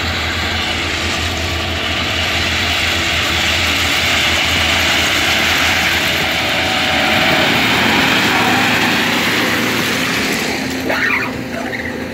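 Kershaw ballast regulator's diesel engine running as the machine travels past along the track, with a steady rushing noise of ballast stone being pushed and spread by its plows. Loudest about eight seconds in as it goes by, then easing off.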